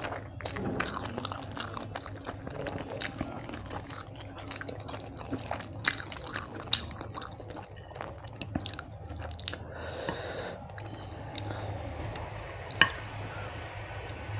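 Close-miked eating sounds: wet chewing and lip smacking, with fingers squishing rice and fish curry together on a plate, and many small scattered clicks. One sharp click near the end is the loudest sound.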